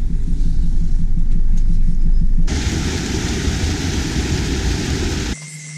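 Van engine and road noise heard from inside the cabin, a loud low rumble. About two and a half seconds in it cuts abruptly to a stream rushing over rocks, a loud even hiss, which cuts off sharply near the end.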